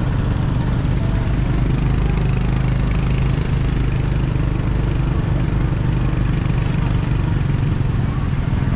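A vehicle engine running steadily, with a constant low hum.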